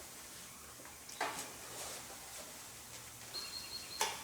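Two light knocks, one about a second in and one near the end, over quiet room tone, with a brief faint high tone between them.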